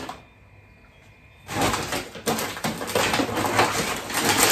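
A brown paper shopping bag and the packets inside it rustling and crackling as someone rummages through it. The rustling starts about a second and a half in, after a single click at the start.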